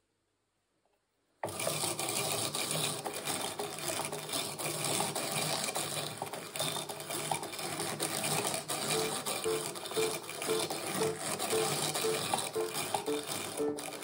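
Hand-cranked drum carder running, its wire-toothed drums turning and combing raw cotton: a dense, fast-ticking mechanical rattle and whirr. It starts suddenly about a second and a half in.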